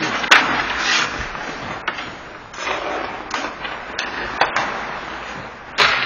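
Ice hockey play: skate blades scraping and carving the ice in swelling hisses, cut by sharp clacks of sticks hitting the puck, the loudest about a third of a second in and again just before the end.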